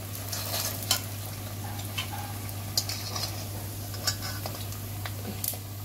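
Oil sizzling in an iron kadai as fried sabudana vadas are lifted out with a wire skimmer and a slotted spoon, with a few light metal clicks of the utensils against the pan.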